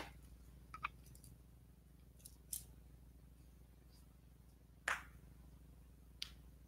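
A few sharp finger snaps, irregular and a second or more apart, the loudest about five seconds in, over a faint steady low hum.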